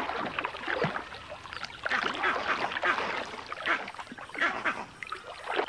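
Muddy water splashing and sloshing in irregular bursts as crocodiles thrash over an impala carcass in a shallow pool.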